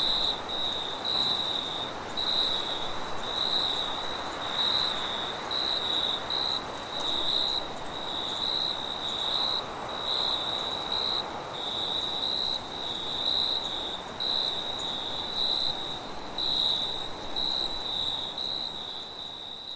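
Crickets chirping in a steady pulsing rhythm, roughly two chirps a second, over a continuous higher insect trill and a soft even hiss of wind.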